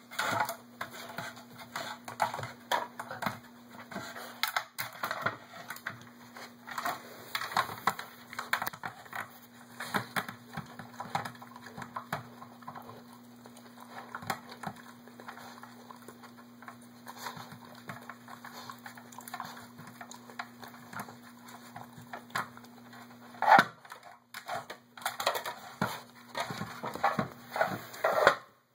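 Hard plastic star-shaped treat puzzle being pawed, nosed and pushed across a tile floor by a Labrador puppy: irregular clicks, clacks and scrapes of the plastic layers, with one louder knock late on.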